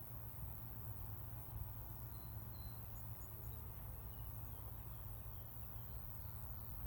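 A few faint, short high-pitched chirps from insects over a steady low rumble.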